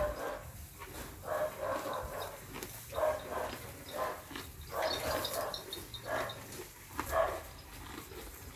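Short animal calls repeated about once a second, barking-like.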